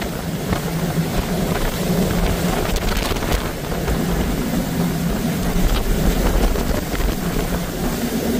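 Hurricane-force wind making a loud, rough rush that swells and eases in gusts, buffeting the microphone.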